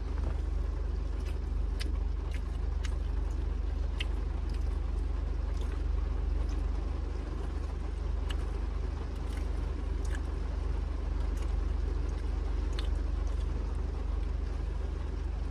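Rain falling on a car's roof and windows, heard from inside the cabin as a steady hiss over a low rumble, with scattered small ticks.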